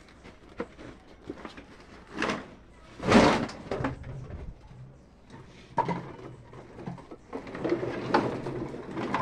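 Plastic sacks of recyclables being handled and moved: rustling plastic and knocks, with one loud thud-and-crash about three seconds in and further rustling near the end.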